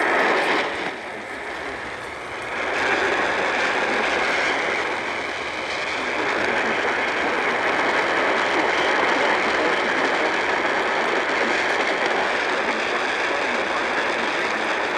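Radio static: steady crackling hiss from a receiver that is not picking up the station, the sign of poor reception. It dips for a couple of seconds near the start, then holds steady.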